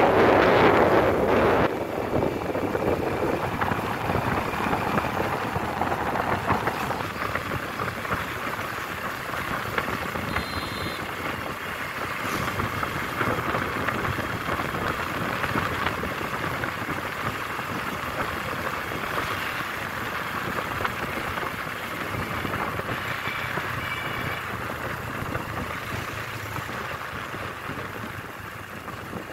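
Wind rushing over the microphone, mixed with engine and road noise from a moving vehicle. It is heavy and gusty for the first couple of seconds, then settles into an even rush.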